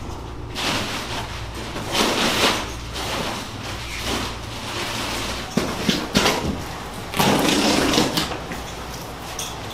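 Demolition work by hand: rough scraping and tearing with knocks as material is pulled up, a cluster of sharp knocks about six seconds in and a longer, louder scrape near the end.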